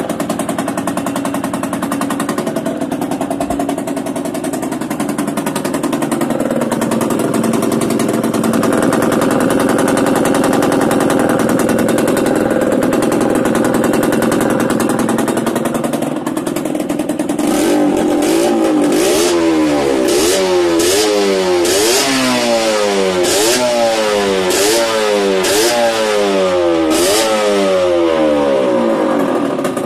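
Yamaha DT125R two-stroke single-cylinder engine breathing through a Big One aftermarket exhaust, running steadily and then held at higher revs. From about 17 seconds in it is blipped repeatedly, about nine quick revs that rise and fall roughly once a second.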